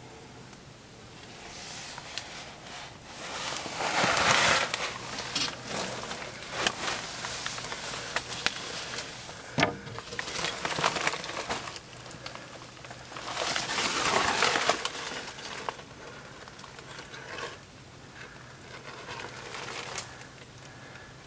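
Someone crawling through a crawl space, scuffing and crinkling against crumpled sheeting. The rustling is loudest in two stretches about 4 and 13 seconds in, with one sharp knock near 10 seconds.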